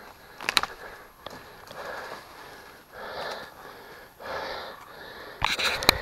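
A person breathing hard close to the microphone, long noisy breaths in and out about once a second or so. Sharp clicks cut in about half a second in and again in a loud cluster near the end.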